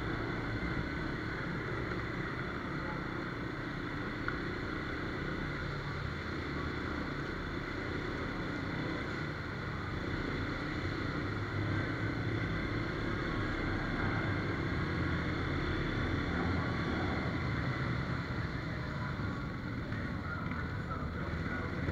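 Off-road vehicle engine running steadily while riding along a trail, a continuous low drone.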